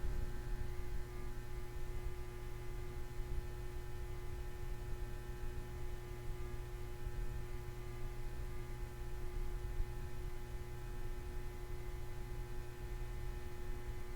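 Steady electrical hum with a low rumble and several fixed high tones, unchanging throughout.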